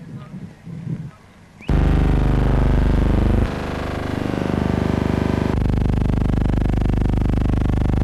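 Loud sustained music, a dense held chord of many tones, starts suddenly about two seconds in after a faint opening and shifts twice.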